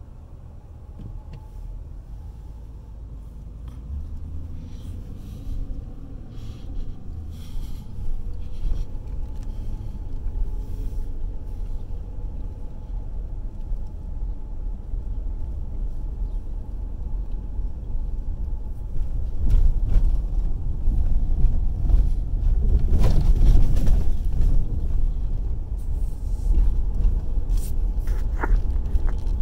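Low rumble of a car driving, with engine and tyre noise heard from inside the cabin. It gradually gets louder and is loudest in the last third.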